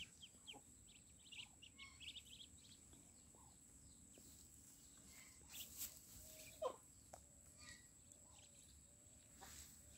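Faint peeping of Muscovy ducklings: short high chirps in quick runs, with a few louder calls about six seconds in.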